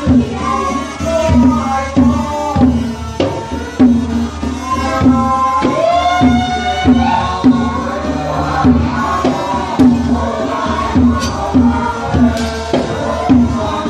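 Cambodian traditional ensemble playing arak music: goblet hand drums beat a steady pulse about twice a second under a melody with sliding notes.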